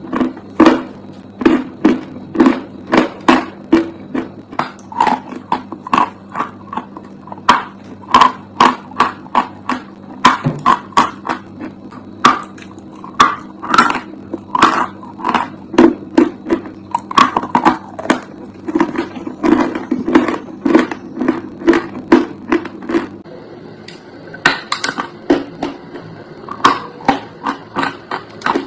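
Close-up crunching of dry chalk being bitten and chewed, with sharp crunches coming about two to three a second. A low steady hum sits under the first part and stops about 23 s in.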